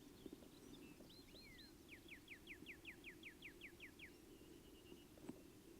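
A songbird singing faintly: a few short chirps, then a quick series of about a dozen down-slurred whistled notes, roughly five a second, lasting about two seconds. A faint steady low background hum runs underneath, and there is a single soft tick near the end.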